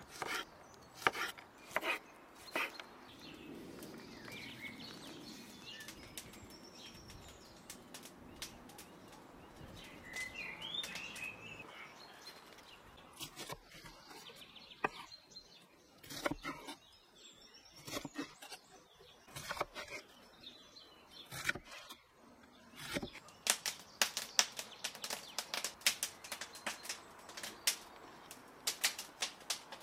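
Kitchen knife chopping garlic cloves and green peppers on a wooden cutting board, each cut a sharp knock of the blade on the wood. The cuts come sparsely through the middle and in a quick, dense run over the last several seconds, with birds chirping in the background around the middle.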